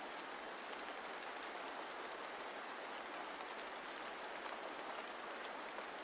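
Gentle rain falling steadily, an even soft patter with the odd faint drop standing out.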